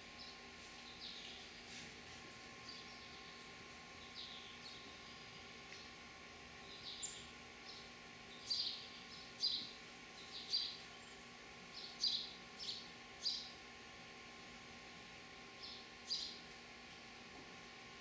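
House sparrows chirping: a series of short, sharp cheeps, sparse at first and then about seven loud ones close together in the middle, with a couple more near the end. A steady faint high-pitched drone continues underneath.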